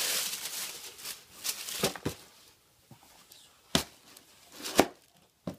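Tissue packing paper rustling and crinkling as a suede loafer is pulled out of its shoebox, then a few sharp knocks on the cardboard box as the shoes are handled and set down on it.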